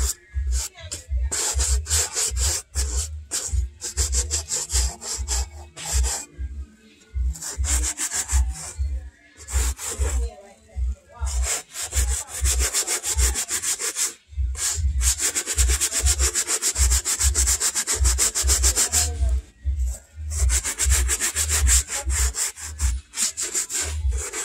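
Stiff bristle brush scrubbed briskly back and forth over a black suede Clarks boot, a fast run of scratchy strokes with a soft thump on each, stopping briefly a few times. The suede is being brushed to lift watermarks and restore it.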